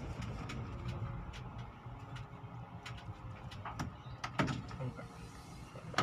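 Car engine running at low speed, heard from inside the cabin, with scattered light clicks and rattles and a brief louder knock about four and a half seconds in.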